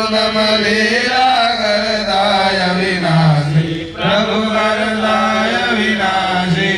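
Hindu mantra chanting for a havan: a voice reciting on a near-steady pitch, with a short break for breath about four seconds in.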